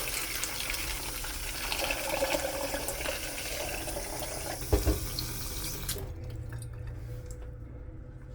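Kitchen tap running into a container, shut off sharply about six seconds in, with a dull knock shortly before it stops.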